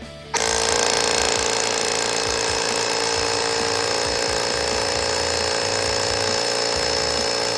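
Built-in electric air compressor of a Yaber AP02 car jump starter switching on and running steadily. It starts abruptly under a second in and stops right at the end.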